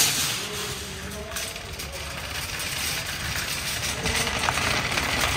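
Faint, indistinct voices over a low, steady rumble of background noise.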